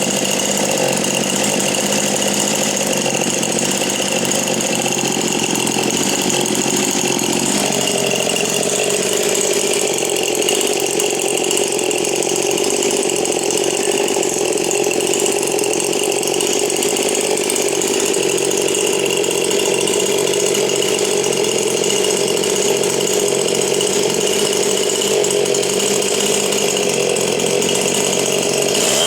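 Stihl MS 291 two-stroke chainsaw running at high revs through a Buckshot test muffler, used to check the saw's power output. About eight seconds in its pitch drops, and it holds the lower note after that.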